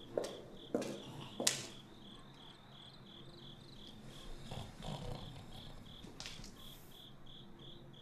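Crickets chirping steadily, about three even chirps a second, with three footsteps on a hard floor in the first second and a half, the last the loudest.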